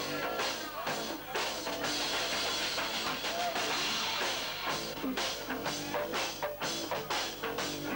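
Live rock band playing: electric guitars over a drum kit keeping a steady beat, with a wash of cymbals about halfway through.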